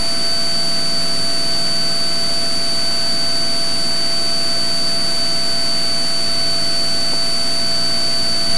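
Turbocharged 540-cubic-inch Lycoming engine and propeller of a Cessna T182T Skylane running steadily at climb power, heard as a loud, even drone inside the cockpit with a thin, high, steady whine over it.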